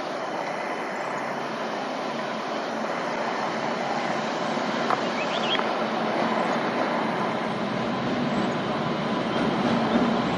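Twin WAG-9 electric locomotives rolling slowly along the track: a steady rumble of wheels on rail that grows gradually louder, with a brief high squeak about five seconds in.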